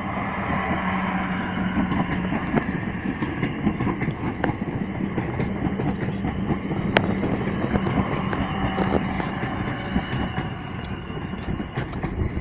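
Class 444 electric multiple unit running into the station, with a steady hum that fades out about nine seconds in, and scattered clicks from the wheels over the rail joints.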